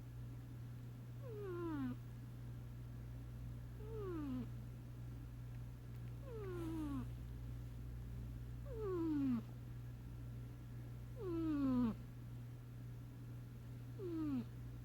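A sleeping cat snoring: six whistling tones, each falling in pitch, one with each breath about every two and a half seconds.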